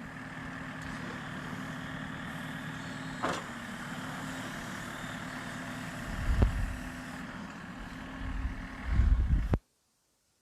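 Backhoe loader's diesel engine running steadily, with a sharp click about three seconds in and a knock about six seconds in. Low rumbling thumps follow in the second half, and the sound cuts out completely near the end.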